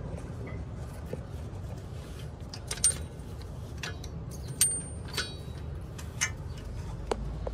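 Light metallic clinks and taps, about six scattered over several seconds, some with a brief high ring, as a 1992 Toyota pickup's sway-bar end-link bolt, washers and bushings are handled and fitted by hand. A steady low rumble runs underneath.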